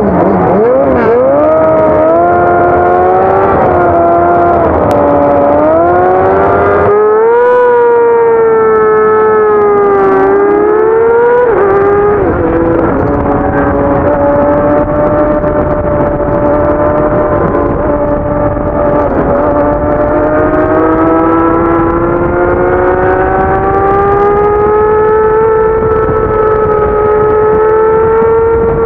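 Racing motorcycle engine under hard acceleration, heard from on board: the pitch climbs and drops with several quick upshifts in the first dozen seconds, then rises slowly and steadily at high revs with steady wind rush.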